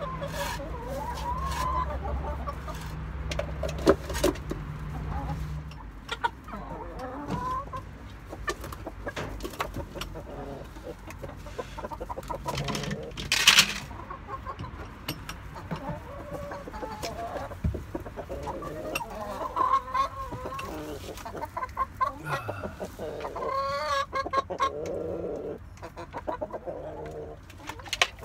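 Chickens clucking in a coop, a flock of hens with a rooster, with scattered knocks and scuffs among the calls.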